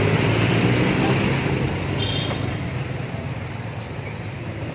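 Street traffic noise, with a vehicle engine running close by as a steady low rumble that slowly fades.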